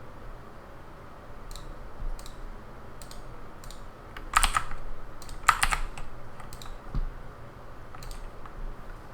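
Computer keyboard keys pressed at an uneven, unhurried pace: a few light taps at first, then two louder clusters of keystrokes about halfway through, over a faint steady hiss.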